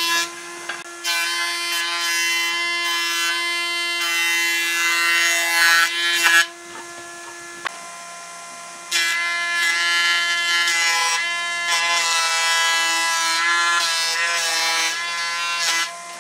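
Combination planer-thicknesser running with a steady high whine from its cutterhead, planing pine boards. Two long stretches of loud cutting noise as boards are fed through, with a quieter lull at idle between them.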